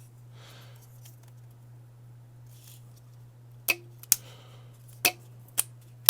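Sharp clicks and clacks of small hard parts of an Xbox One S's cooling assembly being handled and fitted together, five of them in the second half, the last the loudest, over a steady low hum.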